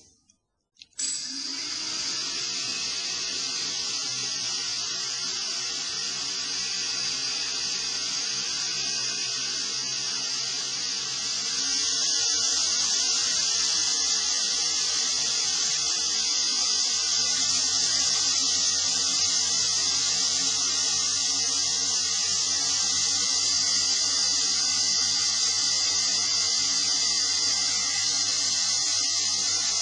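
A quadcopter's four brushless motors spin its propellers in a steady, high whir that starts abruptly about a second in and gets louder about eleven seconds in as the throttle is raised toward half.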